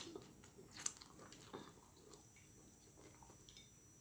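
Faint chewing of a mouthful of food, with a few sharp mouth clicks in the first second and a half and softer ticks after.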